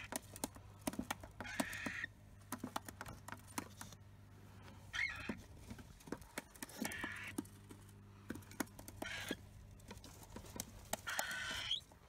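Cockatiel chick giving short raspy calls about every two seconds, five in all, the last one the longest, over light clicks and scratches from its feet moving in the wood-shaving bedding.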